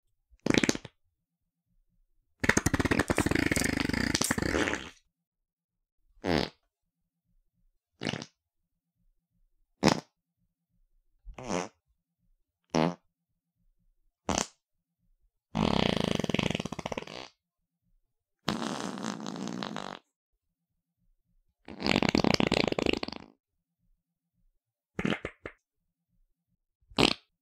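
A series of fart sounds, about thirteen separate ones with silence between. Short blasts are mixed with four longer, drawn-out ones lasting one and a half to two and a half seconds.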